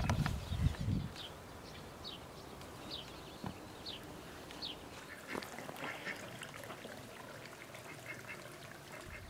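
A bird calling: a run of short, high, falling chirps about every two-thirds of a second, with softer scattered calls later on. A few low thuds sound in the first second.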